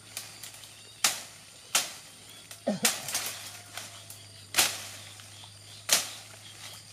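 Dry brush and twigs snapping as they are pulled and broken by hand: about half a dozen sharp cracks, irregularly spaced a second or so apart.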